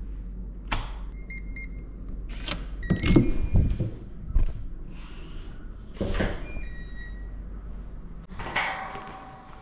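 Digital keypad door lock on a bathroom door being worked: short electronic beeps and chimes mixed with clicks and clunks from the latch and the door handle, loudest about three seconds in.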